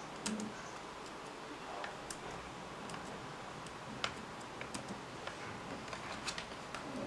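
Irregular light clicks and taps from fingers handling a plastic digital alarm clock and working the buttons on its back panel.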